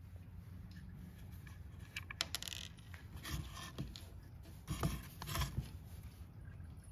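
Hand screwdriver clicking and scraping as Torx screws are worked loose from a plastic cordless-drill housing, with the tool and drill being handled. The sounds come as a few short clusters, about two seconds in and again around four to five and a half seconds, over a faint low hum.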